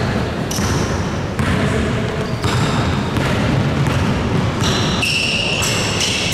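A basketball bouncing on the court during a game: several bounces at uneven intervals over a steady background of game noise.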